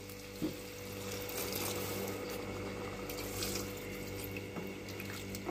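Water pouring steadily from a glass jug into a stainless steel pot of frying tripe in tomato sauce, with a light knock about half a second in. The water is being added to make the sauce so the stew can simmer.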